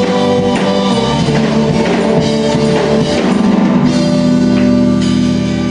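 Gospel band playing an instrumental passage: a drum kit keeping time under held chords.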